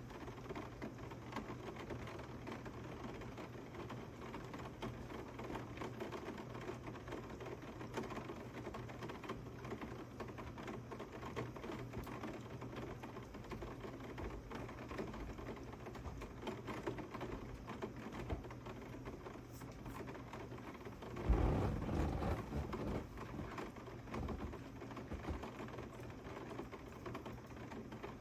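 Heavy rain pattering steadily, a dense stream of tiny ticking drops. A sudden low rumble comes about two-thirds of the way through and fades over a couple of seconds.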